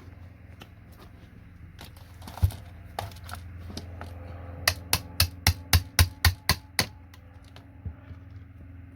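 Chisel being knocked into a keyboard to pry parts apart: scattered clicks, one sharp knock about two and a half seconds in, then a quick run of about nine even taps, roughly four a second, around the middle.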